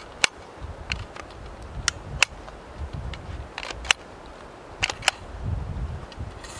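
Sharp clicks from a Kel-Tec RFB rifle being handled while a failure to feed is cleared, mostly in close pairs, four pairs in all, over a low rustle.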